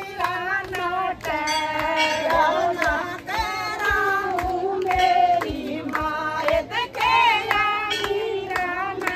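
Women singing a Hindi devotional bhajan, with hand claps keeping a steady beat a little under twice a second.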